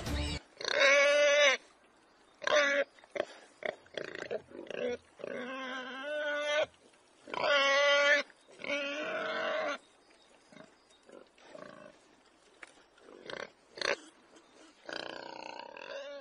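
Warthog distress squeals: a string of loud, high, pitched squeals, the longest about a second each, with shorter calls in between, growing fainter and more scattered after about ten seconds.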